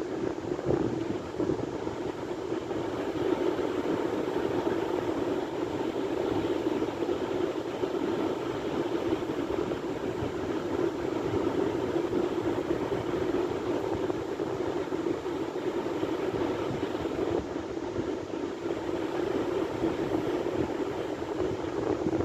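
Sea waves: a steady, unbroken wash of surf.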